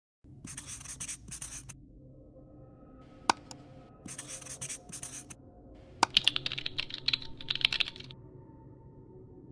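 Felt-tip marker writing on a board, scratchy squeaking strokes in three short runs, with two sharp clicks between them.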